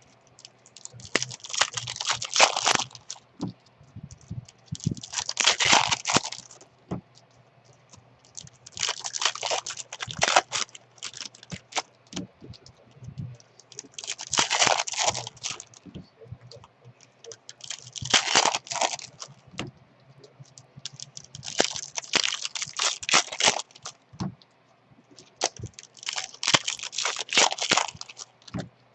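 Baseball card packs being torn open and their wrappers crinkled, one pack after another: seven bursts of tearing and crinkling about every four seconds, with small clicks of cards being handled in between.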